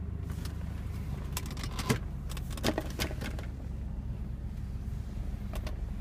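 2003 Ford Thunderbird's V8 idling with the air-conditioning blower running, a steady low hum heard from inside the cabin. A few light clicks and knocks are scattered through it.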